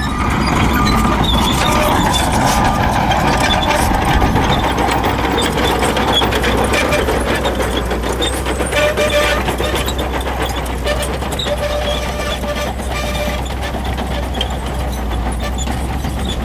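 Shantui bulldozer's diesel engine running steadily under load, with the clank and rattle of its steel tracks.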